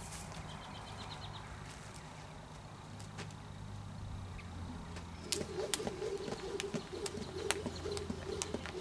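Jump rope slapping the dirt on each turn, a sharp regular tick about twice a second, starting about five seconds in once the jumping gets going.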